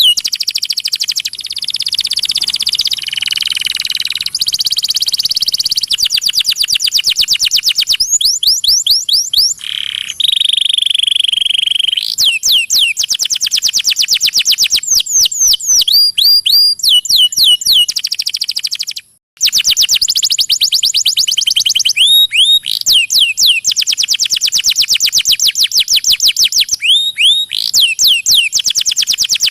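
Domestic canary singing: a long song made of rapid trills, each run repeating one sweeping note many times a second before switching to a new note, with a brief break a little past the middle.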